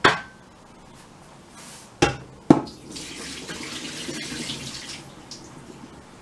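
Stainless-steel saucepan knocking against hard kitchen surfaces, three sharp clanks, then tap water running into the sink and pan for about two seconds.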